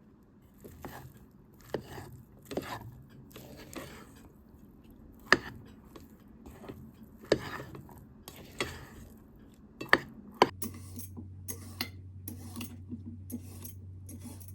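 Kitchen utensils clinking and knocking against dishes and cookware in a string of separate strikes, a few of them sharp. About ten seconds in, a steady low hum from an appliance starts up underneath.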